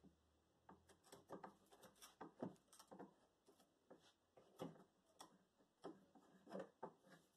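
Sharp hand chisel paring end grain and shavings from the bottom of a notch cut in a wooden table leg: a series of short, faint scraping strokes, roughly two a second.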